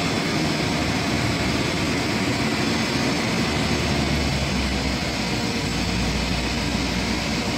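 Truck-mounted crane's truck engine running steadily while the crane holds and lifts a heavy machine assembly. A deeper low rumble comes in about halfway through.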